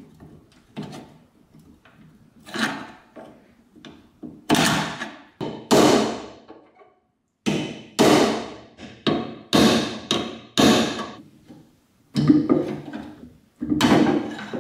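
Hammer striking a steel pin punch set into an antique iron held in a vise: about ten sharp metallic blows, each ringing briefly, coming irregularly about a second or two apart, with a few lighter clicks before the first blow.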